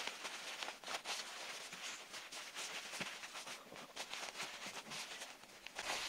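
Hands rustling and shifting a long-pile faux-fur costume around a fan housing: irregular soft scuffs and rustles, with a sharper tick about three seconds in.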